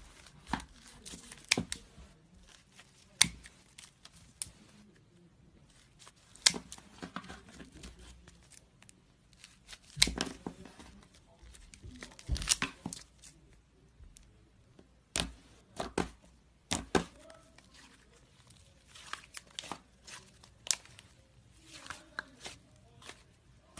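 Scissors cutting through slime: a string of sharp snips at irregular intervals, with soft crackling between them.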